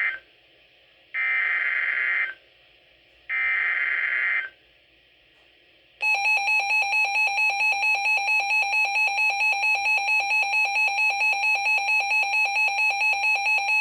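Emergency Alert System tones on NOAA Weather Radio. First come bursts of raspy digital header data, each about a second long with a second of silence between. About six seconds in, the steady attention alarm tone starts and holds, wavering slightly about four times a second.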